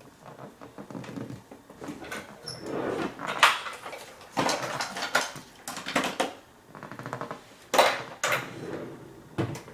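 Small clicks, taps and scrapes of metal lock parts and tools being handled on a bench while a pin-tumbler lock is taken apart, with a short rattle about six seconds in.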